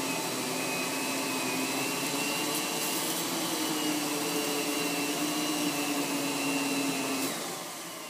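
Miele upright vacuum cleaner running steadily on carpet with its motor whine, making a cleaning pass over embedded sand and cat litter. About seven seconds in it shuts off and the whine falls away as the motor winds down.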